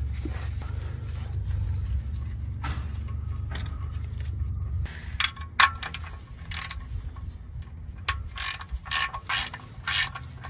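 Ratchet wrench clicking as it tightens an oil-pan drain plug. The clicks start about halfway through and settle into a regular run of about two a second near the end. A low hum fills the first half.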